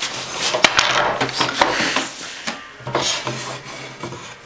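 Cardboard parcel and its paper wrapping being handled and opened by hand: irregular scraping and rustling with small knocks and clicks, busiest in the first couple of seconds.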